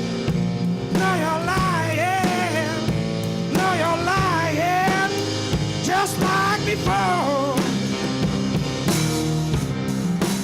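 Blues band instrumental break: a slide guitar plays a lead with gliding, wavering notes over the rest of the band.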